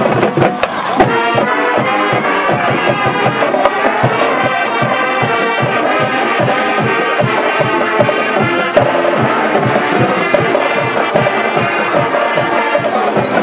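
High school marching band playing its touchdown tune: brass section carrying the melody over a steady, driving drum beat.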